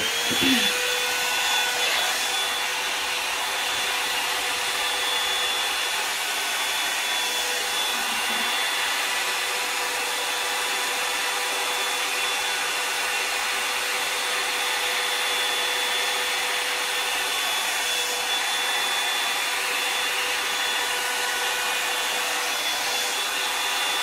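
Revlon One Step hair dryer and volumiser, a round-brush hot-air styler, switched on and running. Its motor whine rises briefly as it spins up, then holds a steady pitch over an even rush of air.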